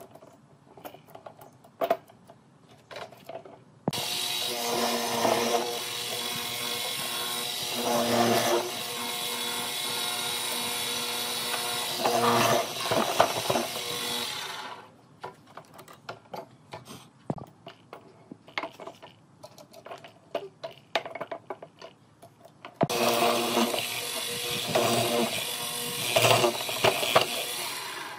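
Hollow-chisel mortiser's electric motor running, louder each time the chisel and auger are plunged into the wooden block to cut a square mortise. The motor starts about four seconds in, stops about halfway through and starts again near the end, with scattered clicks and knocks of handling while it is off.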